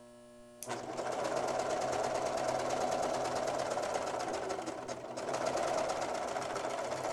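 Brother 1034D serger starting up about half a second in and running steadily, stitching an overlock test seam along knit fabric with a rapid, even chatter of needle strokes.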